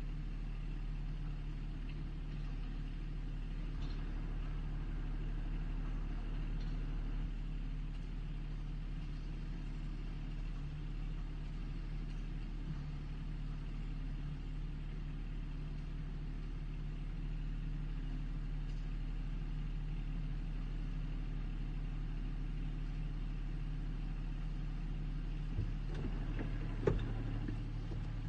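Backhoe engine running steadily at an even, low speed, with a couple of short knocks near the end.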